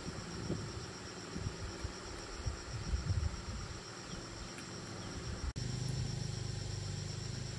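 Insects chirping as a steady, finely pulsed high trill, over irregular low knocks and handling sounds. About five and a half seconds in, after a brief dropout, a steady low hum takes over.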